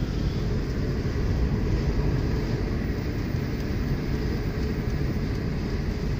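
Steady low rumble of a car driving on the road, engine and tyre noise heard from inside the cabin.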